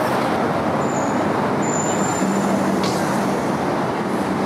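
Steady road traffic noise, with a van's engine and tyres running close by as it pulls away along the street. A brief thin high whine sounds about two seconds in.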